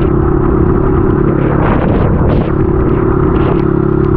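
Dirt bike engine running steadily while being ridden, heard through a handlebar-mounted camera with wind rushing over the microphone. The engine note wavers briefly about two seconds in.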